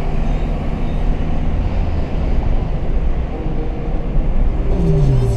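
Steady low road and engine rumble inside the cabin of a moving Renault Clio 1.6 16V.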